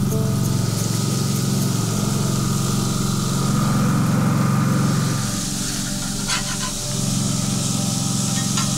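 A steady low droning hum over the hiss of burger patties sizzling on a grill, with a couple of sharp clicks of a metal spatula against the grill grate, one near the end.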